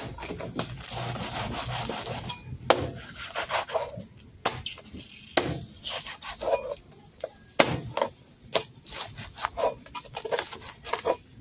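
A large kitchen knife chopping crispy air-fried pork belly on a plastic cutting board: the crackling skin crunches under the blade, and the blade knocks sharply on the board at irregular intervals, about every one to two seconds.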